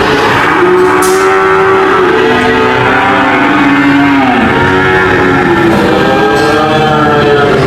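Cow mooing: two long, loud moos one after another, each rising and then falling in pitch.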